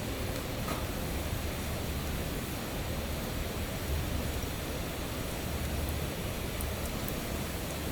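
Steady rushing noise with a low rumble that swells and fades, and a few faint ticks.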